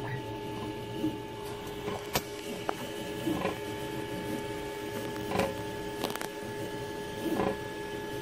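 FDM 3D printer running a print: its motors hold a steady whine of several pitched tones, broken every second or two by short chirps and sharp clicks as the print head moves.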